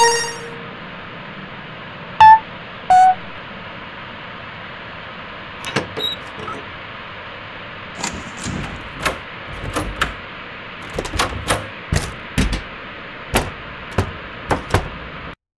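Elevator sounds over a steady hum: a chime right at the start, two short loud beeps about two and three seconds in, the second lower than the first, then from about six seconds on an irregular run of clunks and knocks. The sound cuts off suddenly near the end.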